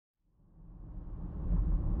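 Car driving along at speed: a steady low rumble of road, tyre and engine noise, fading in from silence over the first second and a half.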